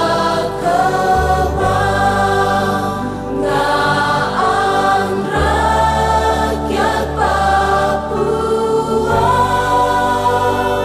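A mixed choir of young voices sings a school hymn in Indonesian in long, held notes over steady bass accompaniment.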